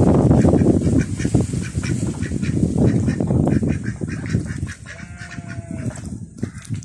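Domestic ducks quacking and splashing as they dabble and feed in the water, loudest over the first half. About five seconds in comes one longer, held call.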